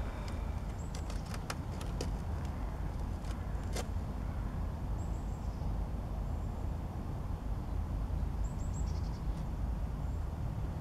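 Outdoor background: a steady low rumble with a few short, high bird chirps and some faint clicks.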